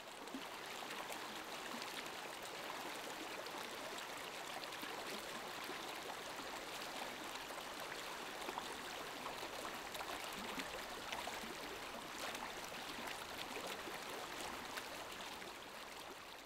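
Water of a shallow stream running in a steady rush, with small trickling splashes.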